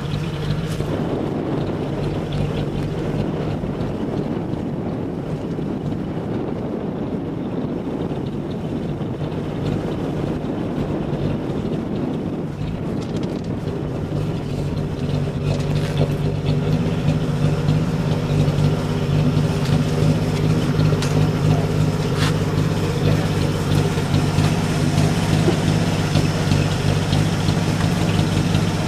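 Boat engine running steadily under way, with wind and water noise; the engine gets louder about halfway through.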